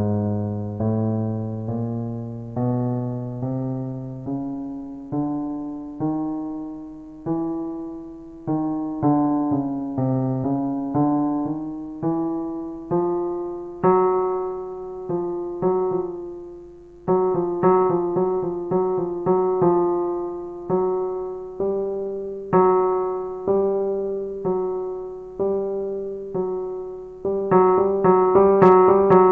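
Kurzweil KA90 digital piano playing a piece: single struck notes that each fade, about one a second at first, then quicker repeated notes from about halfway.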